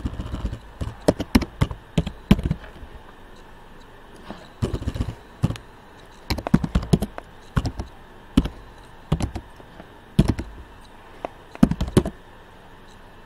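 Typing on a computer keyboard: keys clicking in irregular bursts, with short pauses between them.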